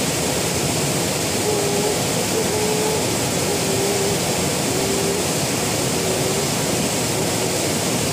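Water pouring over a small concrete weir: a steady, even rush of falling water. A faint short note repeats about once a second in the background.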